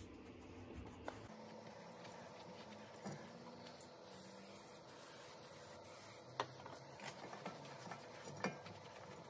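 Faint rubbing of a rag wiping down the face of a new brake rotor on the hub, cleaning off its factory anti-rust oil with brake cleaner, with a few light clicks. A faint steady hum lies underneath.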